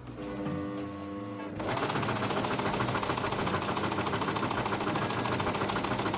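Electric sewing machine stitching a ribbon strap: it starts about a second and a half in and then runs steadily at speed with a fast, even stitching rhythm. Before it starts, background music with held notes is heard.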